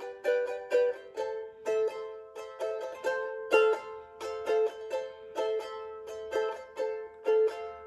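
Tahitian ukulele strummed in a steady rhythm, bright, short-sustaining chords with no singing.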